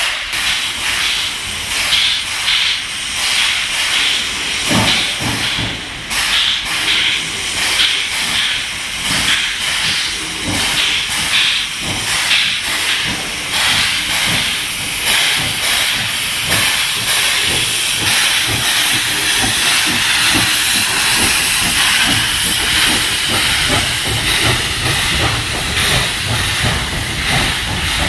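Vintage steam locomotive pulling away with its train, loud hissing steam from the open cylinder cocks over repeated exhaust chuffs, with the rumble of the locomotive and coaches growing louder near the end as they pass close by.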